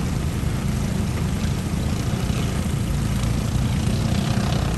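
Steady rain with an even hiss over a continuous low rumble.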